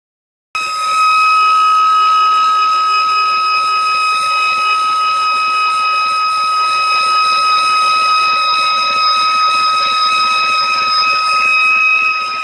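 A steady high-pitched whine with overtones, starting about half a second in, from between a BMW X1's engine and gearbox: the strange noise under investigation.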